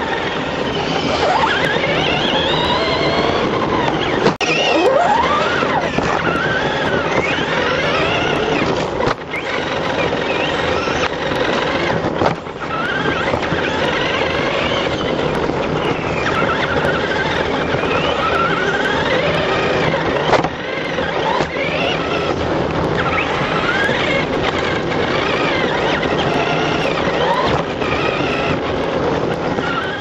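Several electric remote-control trucks racing on a dirt track. Their motors whine, rising and falling in pitch as they speed up and slow down, over a steady din.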